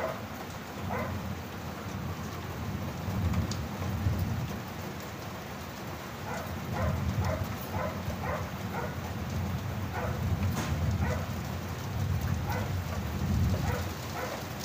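Steady rain falling, with a low thunder rumble that swells and fades several times. Short sharp sounds are scattered through it.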